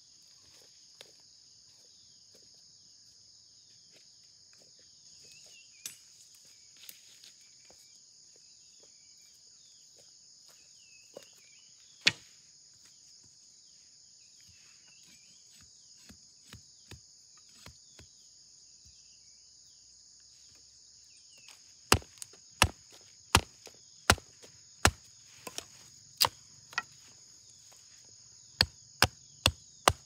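Machete chopping a wooden stick against a log: a run of sharp strikes, about one and a half a second, in the last third, with a single knock earlier. A steady high drone of insects runs underneath throughout.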